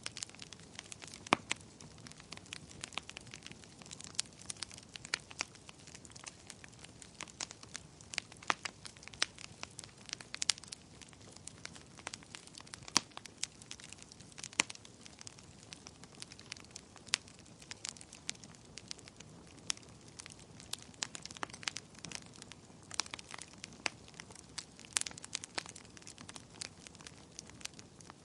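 Fire in a fireplace crackling, with irregular sharp pops and snaps over a faint steady hiss.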